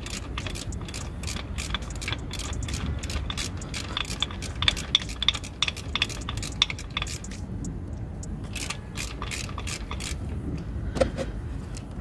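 Ratchet wrench clicking rapidly, about five or six clicks a second, as bolts on the oil filter housing are backed out. It stops about seven seconds in and clicks again briefly around nine to ten seconds, over a steady low hum.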